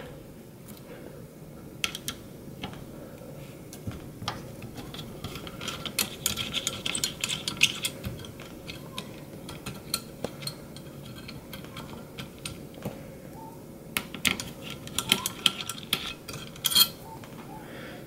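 Small Phillips screwdriver and screws ticking and scraping against the sheet-metal cover of a mini desktop PC while the corner screws are undone: scattered light metallic clicks, busiest about a third of the way in and again near the end.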